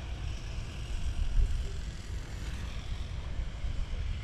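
Wind buffeting the microphone: an uneven low rumble that swells and drops in gusts.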